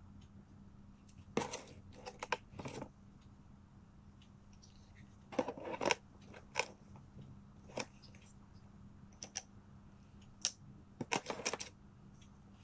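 Plastic parts and packaging of a smartphone video kit being handled: clusters of sharp clicks and crinkling, about three bursts with single ticks between them, over a steady low hum.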